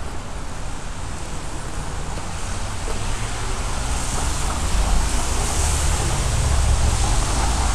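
Steady hiss of city traffic on wet roads in the rain, with a low rumble that grows louder about halfway through.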